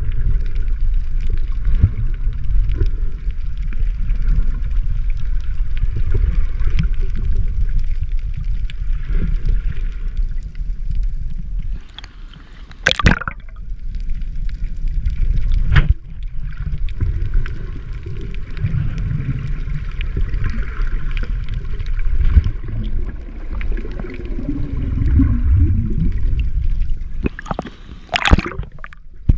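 Sea water heard through a waterproof camera's microphone underwater: a loud, muffled low rumble of moving water with gurgling. Two short splashes stand out, one about 13 seconds in and one near the end as the camera comes up to the surface.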